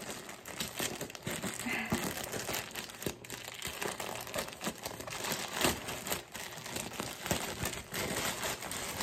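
Plastic poly mailer crinkling and rustling in a dense stream of crackles as it is torn open and its contents are pulled out by hand.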